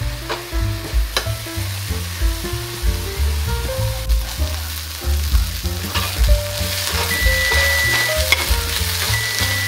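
Diced onions sizzling in butter in a cast-iron skillet as they brown, their water already cooked off, stirred with a metal spatula that clicks and scrapes against the pan. Background music with low stepped notes plays under it, and the sizzle grows brighter about six seconds in.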